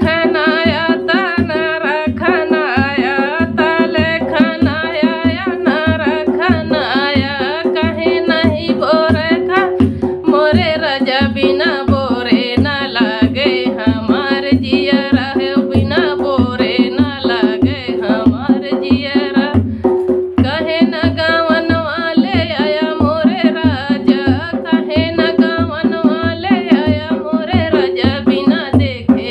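A woman singing a Hindi folk dance song (nach geet) over a fast, even hand-drum beat and a steady held backing tone. Her singing breaks off briefly about twenty seconds in while the beat carries on.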